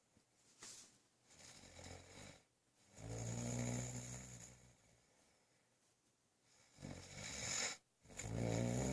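A person snoring in deep sleep: rasping snores repeat every few seconds, one strong snore about three seconds in and another pair near the end, with fainter breaths between.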